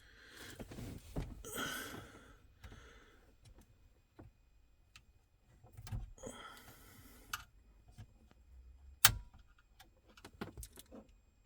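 Plastic clicks and rustling of a car radio's wiring-harness connector being worked by hand to free its latch, with one sharp click about nine seconds in as the plug lets go.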